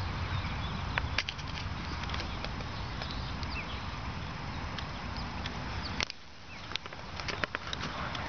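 Outdoor wind rumbling on a handheld camera's microphone, with scattered sharp clicks and a few short high bird chirps. The rumble drops away briefly about six seconds in, then returns.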